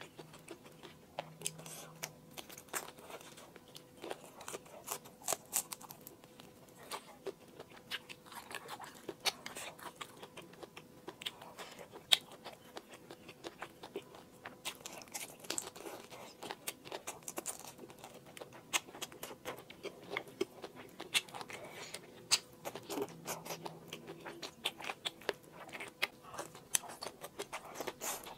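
A person chewing and biting food close to the microphone: wet mouth sounds made of many short, sharp clicks and crunches at an irregular pace, over a faint steady hum.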